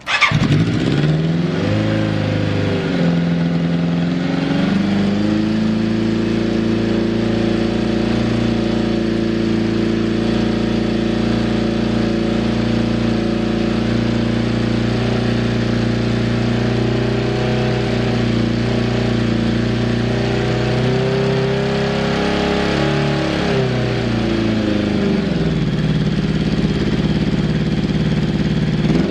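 Yamaha FZR750 inline-four engine catching on the electric starter with one press, then settling from a fast idle into a steady, even idle. Engine speed rises and falls slowly once, about two-thirds of the way in.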